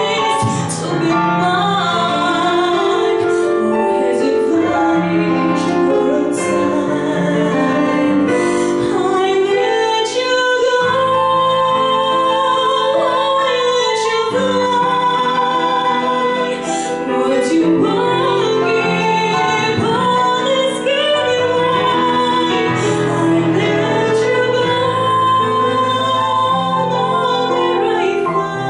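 A woman singing a jazz standard with vibrato on her held notes, accompanied by a digital piano.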